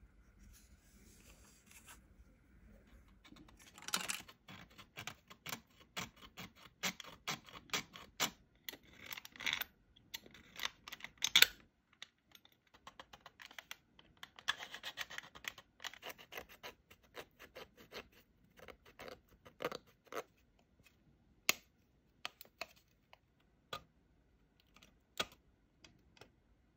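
A hand tool scratching along a plastic model car body in quick, repeated short strokes. The strokes start a few seconds in, run dense through the middle and thin out to scattered scratches near the end.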